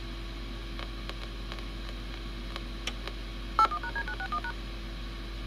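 A rapid string of touch-tone (DTMF) dialing beeps, the 'phone dial noise' recorded on a VHS tape's soundtrack, lasting under a second a little past halfway, over a steady tape-playback hum.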